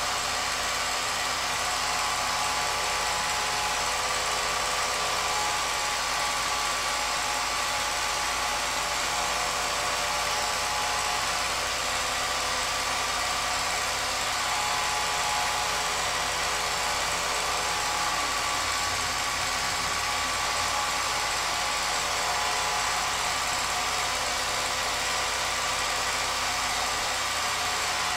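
Home-movie film projector running: a steady, unchanging whir from its motor and mechanism, with a set of even high tones.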